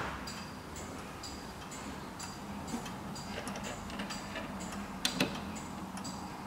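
Junghans pendulum wall clock ticking with a steady, even tick-tock from its movement. About five seconds in come two louder knocks as a hand touches the wooden case.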